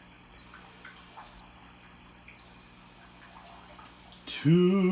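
Electronic appliance beeper giving long beeps at one high pitch: the end of one just after the start, then a second about a second long. A man starts singing near the end.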